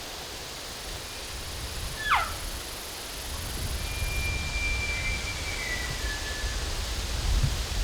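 Elk calling: a quick falling mew about two seconds in, then a long high whistled bugle note that steps down in pitch near its end. Low wind rumble on the microphone underneath.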